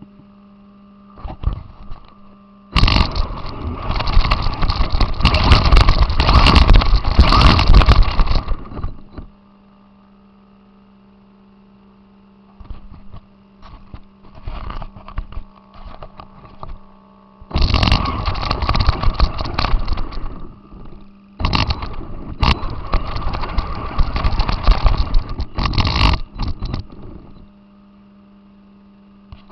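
RC car driving, heard through its onboard camera: three loud stretches of rattling, rushing drive noise as it moves, the first about 3 seconds in, the others near the middle and past it. Between them a steady electrical hum with scattered crackles.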